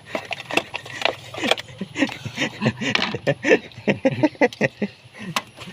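A quick run of sharp clicks and light metallic clinks from small parts and tools being handled, with faint voices in the background.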